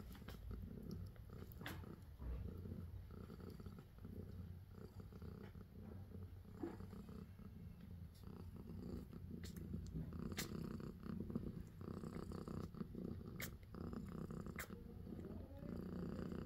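Mother cat purring steadily while her newborn kittens nurse, with a few faint small clicks scattered through the purr.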